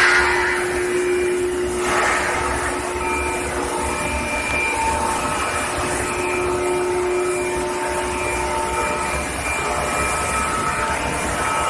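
Industrial machinery running: a steady rumble with several thin, steady whining tones that come and go, and a short rush of noise about two seconds in.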